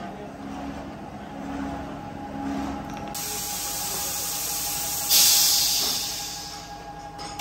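Compressed-air hiss from a plastic moulding machine over its steady running hum, with a loud sudden blast of air about five seconds in that fades away over a couple of seconds.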